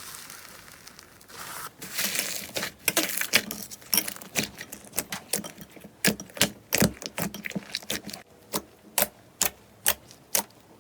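Slime being pressed and poked, giving a run of sharp, irregular clicks and pops, quick and dense at first, then fewer and more spaced out.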